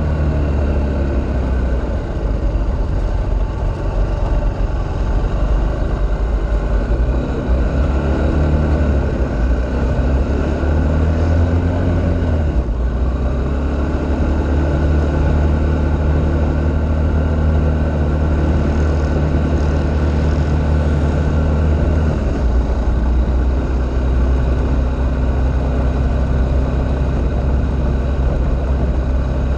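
Off-road vehicle's engine running under way at speed, its note climbing and dropping a few times, with a clear change about twelve seconds in and another past twenty seconds.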